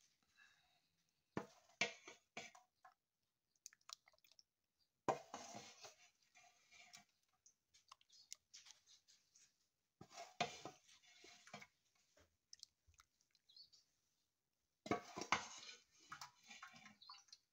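Wooden spoon scooping sweetened saba bananas in syrup from a metal pot into a dish, heard as four short spells of quiet clicks and knocks a few seconds apart.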